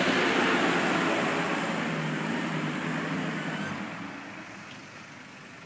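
A road vehicle going past, its engine and road noise loud at first and fading away over about four seconds.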